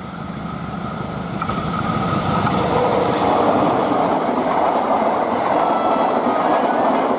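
Diesel-hauled passenger train passing at speed: the locomotive's engine and wheels grow louder as it closes in during the first few seconds, then the coaches' wheels rumble and clatter steadily over the rails as they rush past.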